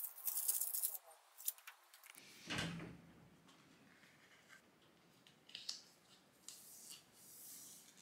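Close-up handling noises: rustling and scraping, a few light clicks, and a soft thump about two and a half seconds in.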